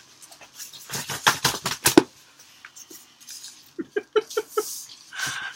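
A man laughing: quick breathy chuckles, then a run of about five short voiced 'ha' laughs near the end.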